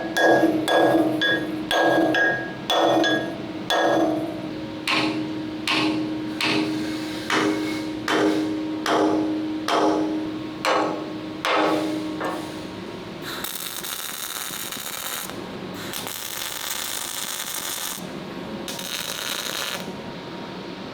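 Hammer blows on a steel plate, about fifteen strikes a little under a second apart, each ringing with a metallic tone: the plug plate being hammered to follow the curve of the tank turret. From about 13 seconds in, three bursts of hissing noise, each a second or two long, replace the hammering.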